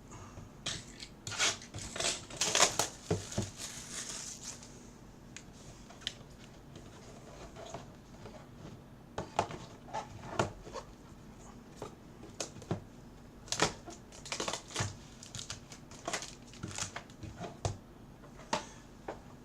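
Trading-card boxes and packaging being handled: plastic wrap crinkling, with scattered taps and clicks. The crinkling is densest about two to four seconds in.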